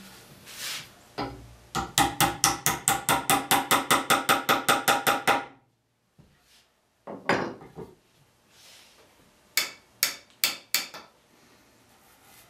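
Hammer tapping a glued wooden wedge home in a Windsor chair joint: a quick run of ringing taps, about five a second for three or four seconds, then a single tap and, near the end, four slower taps.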